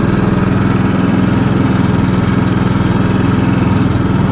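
Engine of a karakat, a homemade all-terrain vehicle on low-pressure tyres, running steadily and loudly as it drives along.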